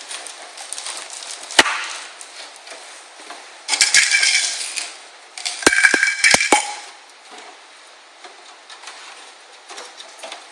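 Small metal hardware being handled: screws and metal parts rattle and clink in two bursts with a metallic ring, after a sharp click about one and a half seconds in.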